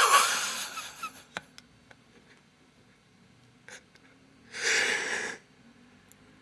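The end of a shouted word trailing off, then a near-silent pause with a few faint clicks, broken a little after the middle by one loud breath from the man's open mouth, a sharp exhale lasting about a second.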